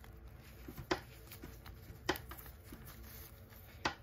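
Hands handling a plastic fashion doll and its small boots: three sharp plastic clicks, about a second or more apart, over soft handling and rustling.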